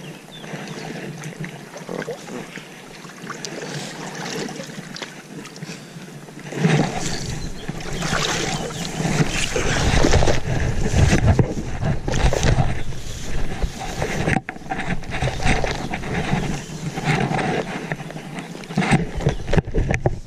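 Handling noise on a body-worn camera: clothing and grass rubbing and knocking against the microphone, turning much louder and rougher about six seconds in, with deep rumbling buffets.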